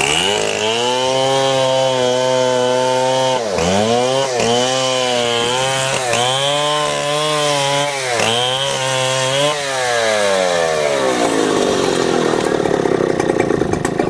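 A two-stroke chainsaw running at high revs as it cuts through a fallen log. The engine pitch dips briefly several times as the chain bites into the wood. About ten seconds in the revs fall away to a rougher, lower running.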